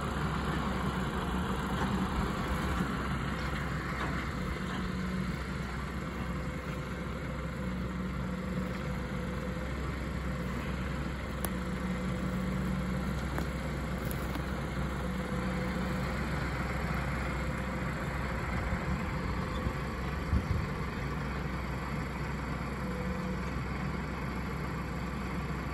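Mahindra tractor's diesel engine running steadily, with a few brief knocks, the loudest about twenty seconds in.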